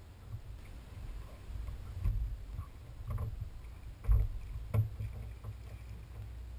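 Knocks and bumps against a small aluminium boat as someone moves about in it, over a low rumble. The two loudest knocks come about four seconds and just under five seconds in.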